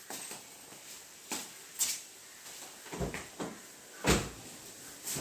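Car door latches clicking and doors of a Maruti Suzuki Swift being worked after the remote unlock, with the loudest, deepest door thud about four seconds in.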